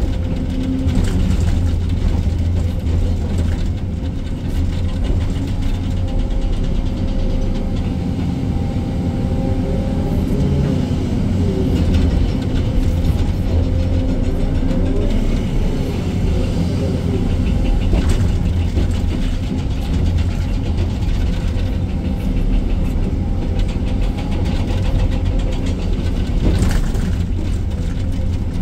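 Excavator diesel engine and hydraulics running steadily under work load, the pitch rising and falling for a few seconds midway. Two sharp knocks come near the middle and near the end.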